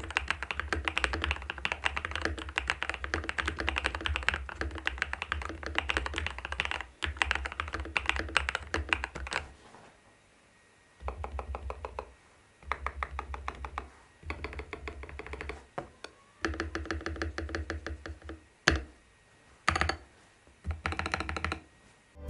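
Typing on an RK R87 mechanical keyboard with pre-lubed Pryzma Java linear switches, aluminium plate, case and PCB foam and PBT keycaps. Fast continuous typing for about nine seconds, then several short runs of rapid keystrokes separated by pauses, with one louder single keystroke partway through.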